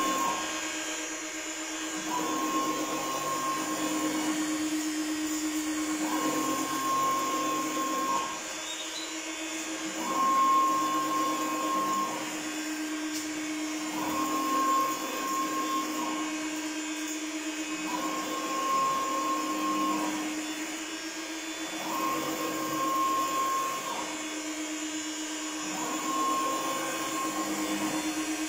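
Vertical UV wall printer running: a steady hum from its air-cooling fans, with the print carriage's brushless servo motor whining as the head sweeps back and forth. A higher whine comes on for about two seconds out of every four, alternating with a lower pass, in an even, repeating cycle.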